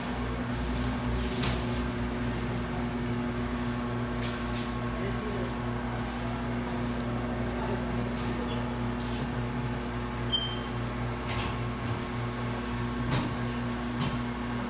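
Steady hum of a cold room's refrigeration and air-conditioning units, with a few faint knocks scattered through.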